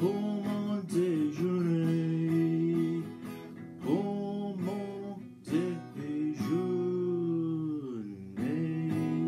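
Acoustic guitar strummed in a steady rhythm, with long held sung notes that slide up and down in pitch over it.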